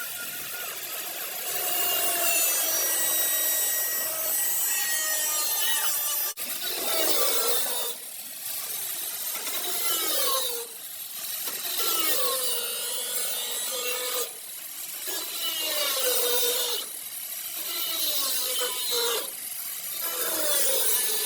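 Power tool working car body panels in passes of a second or two, its pitch sagging under load, with short breaks between passes.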